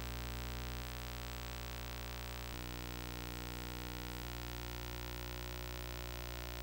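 Steady electrical mains hum: a low buzz made of evenly spaced tones, with no other sound over it.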